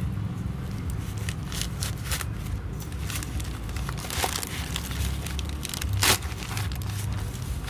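Plastic courier mailer bag crinkling and tearing as it is pulled open by hand, in a run of irregular crackles, with a loud rip about six seconds in.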